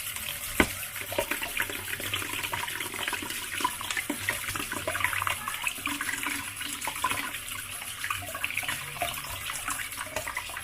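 Tap water running into a sink with irregular splashes as oranges are rinsed and rubbed clean under it.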